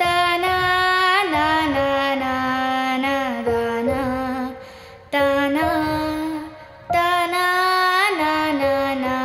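A high solo voice singing a slow melody in long held, ornamented notes, in three phrases with short pauses about five and about seven seconds in.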